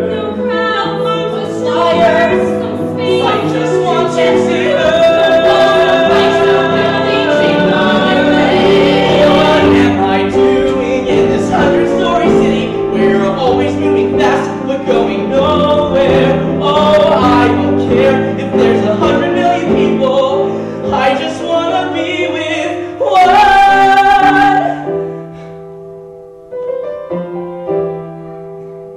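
Voices singing a musical-theatre number with piano accompaniment, building to a loud held note a little over 20 seconds in; after that the singing stops and piano plays on alone, more quietly.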